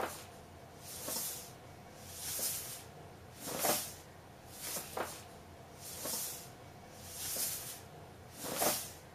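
Cat snoring: a hissing breath about every second and a quarter, eight in all.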